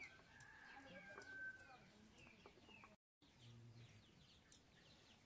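Faint chickens clucking and small birds chirping, with light scattered clicks; the sound cuts out completely for a moment about three seconds in.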